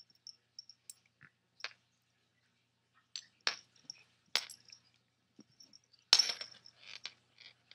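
A cat rolling and scrabbling with a toy on a wooden floor: scattered sharp clicks and scuffs of claws and body on the boards, with a louder flurry about six seconds in.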